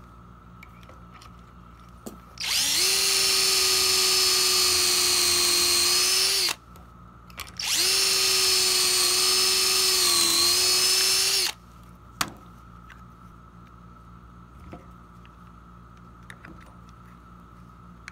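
Cordless drill boring pocket holes through a clamped pocket-hole jig into a wooden board: two steady runs of about four seconds each with a short pause between, the pitch dipping slightly as the bit bites. A sharp click follows the second run, then light clicks of the jig and clamp being handled.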